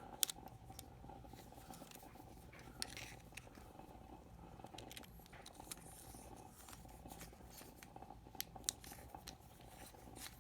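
Faint scattered clicks and taps of a small plastic lighted magnetic pickup tool being handled, its button-cell battery compartment being worked, over a faint steady hum.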